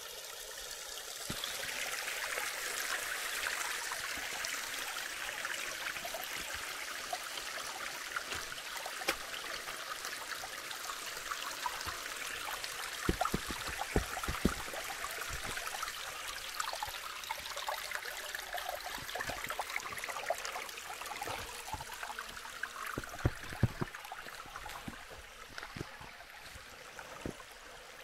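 Creek water running, a steady rush that swells a second or so in and eases off near the end. There are a few sharp knocks about halfway through and again near the end.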